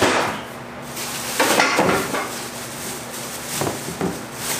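Loose metal grill parts clinking and clattering as they are handled and moved, in a few separate bursts, the longest about a second and a half in.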